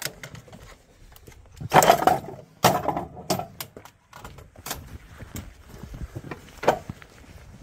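Metal clanks and knocks as an artillery crew handles a shell at a towed howitzer's loading tray and breech: a loud clatter about two seconds in, another about a second later, and a sharp knock near the end.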